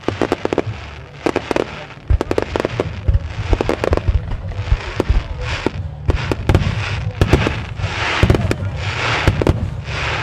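Starmine fireworks display: aerial shells bursting in rapid clusters of sharp bangs over a continuous low rumble. In the second half, longer hissing bursts become more frequent.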